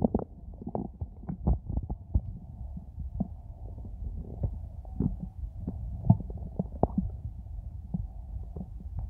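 Hungry human stomach growling: a low steady rumble with many short, irregular gurgles and pops, the loudest a little after the middle. It is the sign of an empty stomach.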